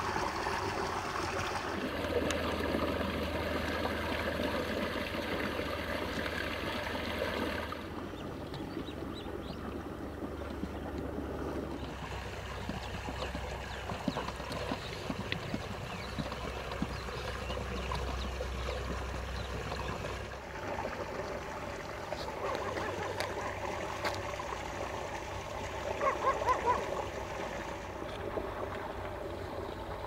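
Outdoor ambience of a steady rushing noise like flowing water, changing abruptly several times with the scene cuts. A short run of louder pitched sounds comes about 26 seconds in.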